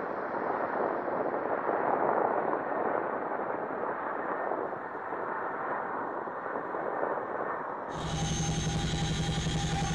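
CH-47 Chinook tandem-rotor helicopter heard from the ground overhead as a steady rushing drone. About eight seconds in it changes abruptly to the sound inside the Chinook's cabin: a loud steady low hum with a fast throb and high whining tones from the twin turboshaft engines and transmissions.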